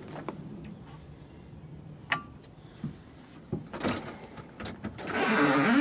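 A doorbell pressed, giving one short ding about two seconds in, followed by a few thumps and then, loudest, a creaking rush near the end as the front door is swung open.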